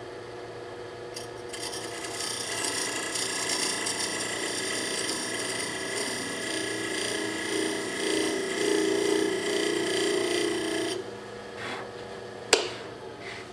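Woodturning lathe running while a turning tool cuts a bead into the face of a spinning wooden bowl blank: a steady scraping cut over the lathe's hum, starting about a second and a half in and stopping abruptly near the end. A single sharp click follows shortly after.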